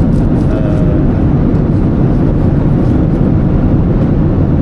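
Airliner cabin noise in flight: a loud, steady, low-pitched rush of engines and air flowing over the fuselage.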